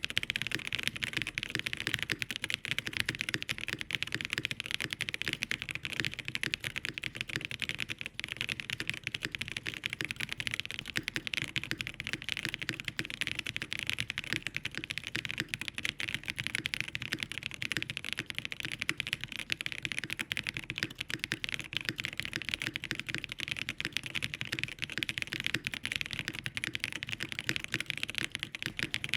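Continuous fast typing on an AERO.75 mechanical keyboard fitted with Dangkeebs Banana Milk linear switches: a dense, steady stream of keystroke clacks.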